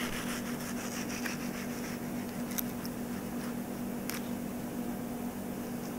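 A cleaver slicing through a mango along its seed on a wooden chopping board, mostly soft, with two faint clicks, over a steady low hum.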